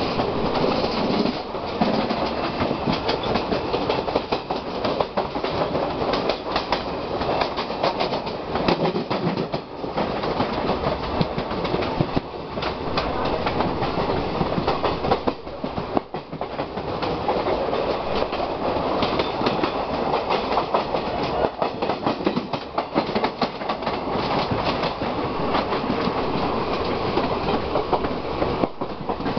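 Two passenger trains running side by side at speed, one of them the 12925 Paschim Express, heard from the open doorway of a coach. There is a steady rush of wheel and running noise with a rapid clickety-clack of wheels over the rail joints.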